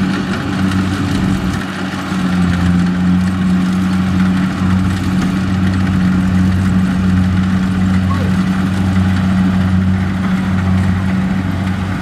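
Kubota DC-70Plus combine harvester's diesel engine running steadily under load while the machine cuts and threshes rice, a loud, even drone with a low hum that pulses slightly.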